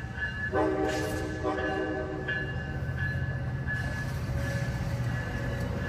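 Amtrak San Joaquin bilevel passenger train rolling past the platform with a steady low rumble. A train horn sounds about half a second in and holds for a second or two.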